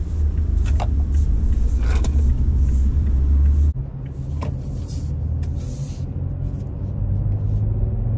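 2021 Toyota Tacoma pickup heard from inside the cab, a steady low rumble of engine and road as it pulls out and gets under way. The rumble drops abruptly a little under halfway through, then builds again.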